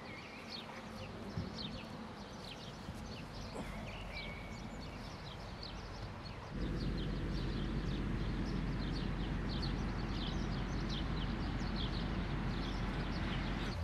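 Many small birds chirping busily, short quick calls over one another. About six and a half seconds in, a steady low rumble joins them.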